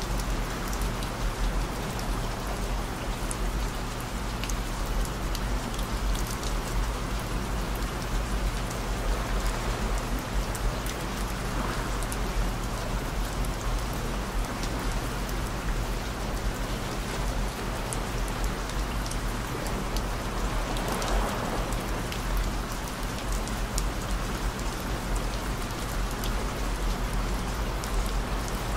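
Steady rain falling, an even hiss with many fine drop ticks, with low steady humming tones mixed in underneath.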